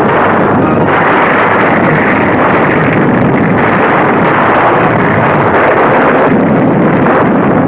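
Loud, continuous roar of a cave-in, with rock and rubble coming down in a cave, on a thin 1930s film soundtrack.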